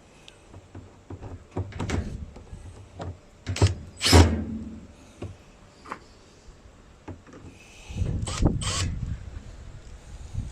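Knocks, clicks and clatter of tools and parts being handled while a washing machine's drum cover is reassembled, with louder knocks about three and a half to four seconds in and again about eight to nine seconds in.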